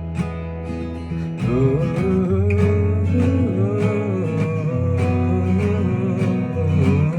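Indie song instrumental: an acoustic guitar strummed in a steady rhythm over a bass line, with a melody that glides up and down above it from about a second in.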